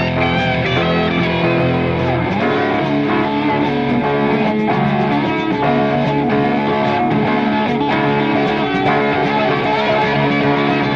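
Rock band playing an instrumental passage between verses, with guitar to the fore and no singing.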